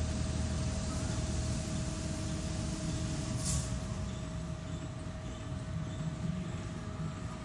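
Steady low mechanical rumble with a constant whine, easing off a little at the start, and a short hiss about three and a half seconds in.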